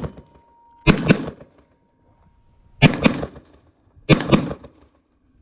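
Three AR-style rifle shots, the second about two seconds after the first and the third a little over a second later, each with a short echo; the shooter is missing the steel target.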